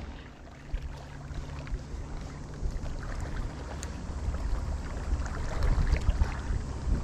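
Wind rumbling on the microphone over sea water washing against shore rocks, growing louder over the second half.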